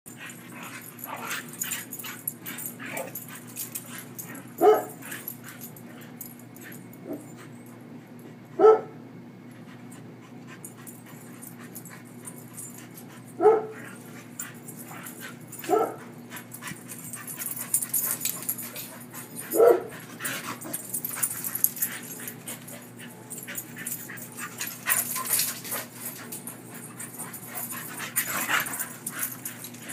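Two dogs, a German Shorthaired Pointer and a golden-coated dog, play-fighting. There are sharp barks, five loud ones a few seconds apart and a couple of softer ones, with quieter scuffling noises in between.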